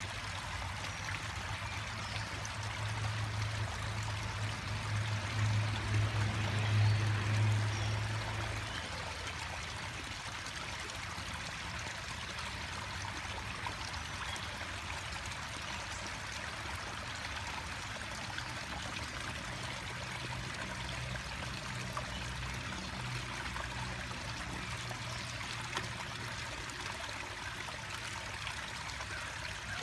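Steady trickle of running water into a garden koi pond. A low hum swells and fades during the first several seconds.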